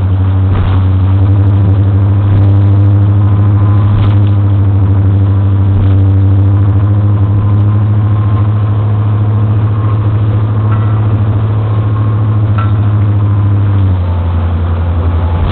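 Dive boat's engine running steadily under way, heard from inside the cabin, with a few knocks and rattles as the boat pounds over 2–3 foot waves. Near the end the engine note drops briefly, then comes back up.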